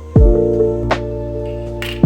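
Background lo-fi music: a deep kick drum with a steady beat under soft sustained instrument notes.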